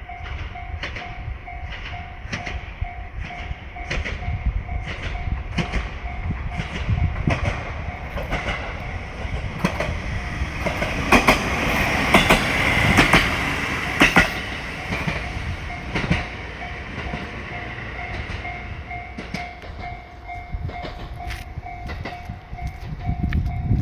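Level-crossing warning bell dinging in a steady fast repeat. A diesel train passes over the crossing about halfway through, louder for a few seconds, with its wheels clacking over the rail joints.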